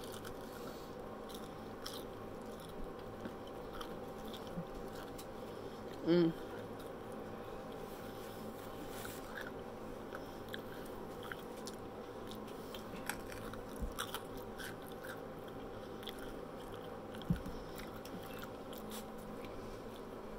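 Close-up chewing and crunching of fried battered onion rings, with small crackles and clicks of biting throughout. A brief pitched hum about six seconds in is the loudest sound.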